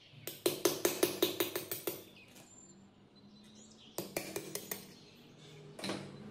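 Rapid light hammer taps on the rusty metal housing of an electric water pump, knocking the end cover loose. A quick run of about a dozen sharp metallic strikes, a pause, then a shorter run about four seconds in and one more knock near the end.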